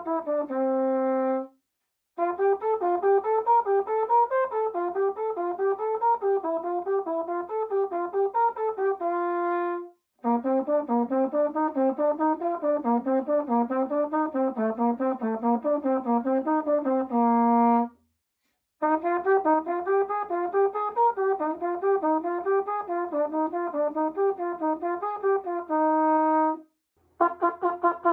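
Marching mellophone playing fast stepwise note patterns up and down in long phrases, each ending on a held note, with short breaks for breath between them. Near the end a run of quick tongued staccato notes on a single pitch begins.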